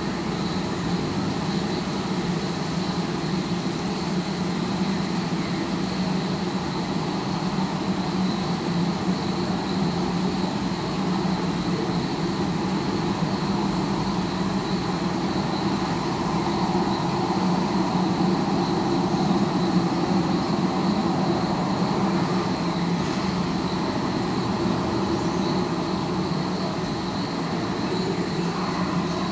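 Steady hum of distant city traffic heard through a sound mirror, a pair of parabolic listening dishes, with a thin high tone held above it.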